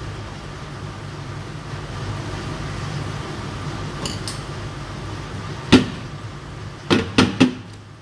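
Steady low hum, with a sharp knock about two-thirds of the way through and three quick knocks near the end.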